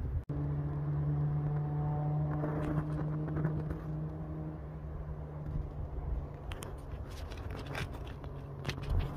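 A steady low engine hum, such as a vehicle or aircraft at a distance, holding for a few seconds and then fading, over wind rumble on the microphone. A few faint clicks or crackles come near the end.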